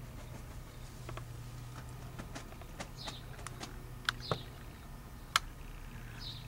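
A scattered run of sharp clicks and taps, three of them louder in the second half, over a steady low hum, with a small bird giving short chirps now and then.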